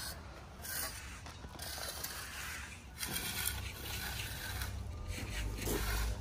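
Steel hand trowel scraping over the surface of a fresh concrete countertop in repeated strokes, burnishing it to a smooth, mark-free finish.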